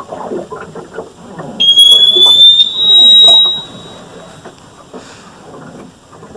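An unidentified horrible, tormenting noise: a jumble of rapid, choppy, garbled sounds. About a second and a half in, a loud, piercing high tone cuts in, slides slightly upward and holds for about two seconds. The source is unknown; the listeners wonder whether it is a sonic weapon.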